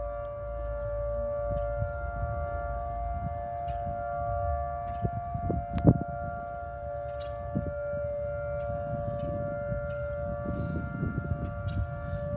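Outdoor tornado warning siren sounding a steady tone made of several notes at once, heard during a test, with a low rumble underneath. A single sharp click about six seconds in.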